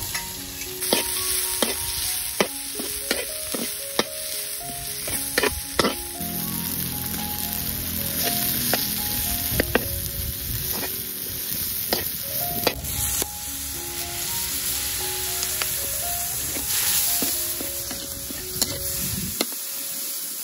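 Food frying in hot oil in a pan, sizzling steadily, with frequent sharp clicks and knocks of a utensil as it is stirred and turned.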